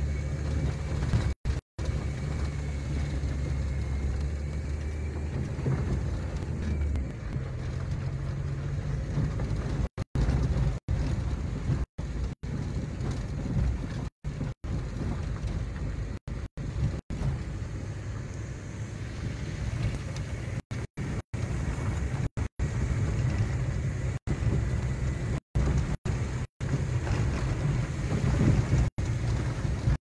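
A car driving over a rough dirt track, heard from inside the cabin: a steady low rumble of engine and road noise. The sound cuts out completely for a split second many times over.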